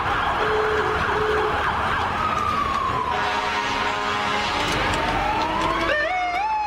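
Fire truck sirens in a parade. One siren winds down in a long falling tone, then another starts up with a rising wail that breaks into a fast yelp near the end. Short steady lower tones sound a few times early on.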